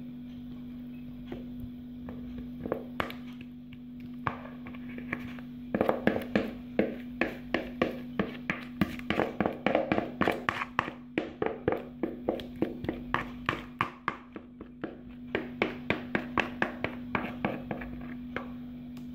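Wooden spoon tapping and scraping against a plastic mixing bowl and a glass baking dish as a thick batter is pushed out of the bowl: a run of quick taps, about two or three a second, starting about six seconds in and stopping near the end, over a steady low hum.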